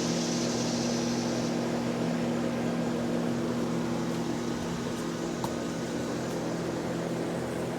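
Air conditioner running with a steady low hum. A high hiss over it fades out about a second and a half in.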